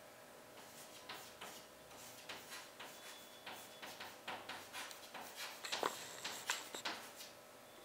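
Chalk writing on a blackboard: a run of light taps and short scratches as letters are written, with a few louder strokes about six seconds in.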